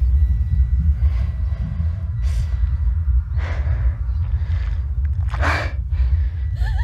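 A frightened woman breathing in short, ragged gasps, about four breaths with the loudest near the end, over a steady low rumble.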